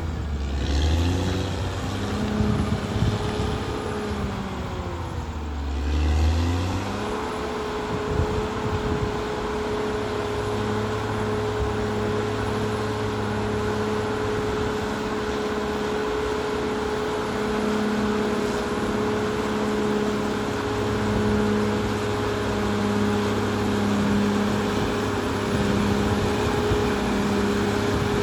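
Caterpillar D6R XL bulldozer's diesel engine working, its pitch sweeping down and back up over the first several seconds, then holding a steady note with a pulsing lower throb.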